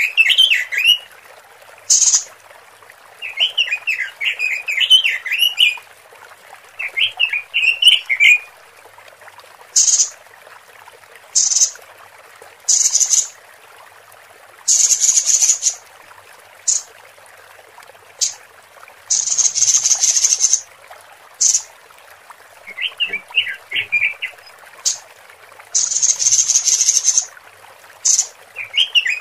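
Female Pekin robin (red-billed leiothrix) calls, played as a lure for males: quick warbled chattering phrases of rapid notes alternating with many harsh rasping buzzes, some brief and some drawn out for a second or two.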